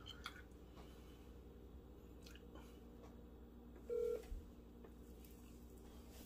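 Quiet room tone with a steady low hum. About four seconds in comes a short electronic beep from a smartphone being handled.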